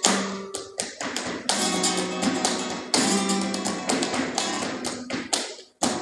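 Flamenco bulería on acoustic guitar with rhythmic hand clapping (palmas), strong accents falling about every second and a half. Near the end everything stops for a moment, then a sharp clap brings the rhythm back in.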